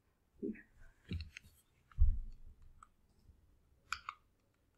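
Computer mouse clicks and light handling bumps at a desk, while a screen share is selected and started. A few soft clicks and low bumps, the loudest about two seconds in, then two sharper clicks near the end.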